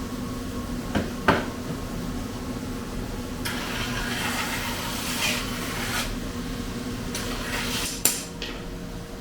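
Steel kitchen knife being handled: two sharp knocks about a second in, then two long scraping strokes of metal, the second ending in a sharp click.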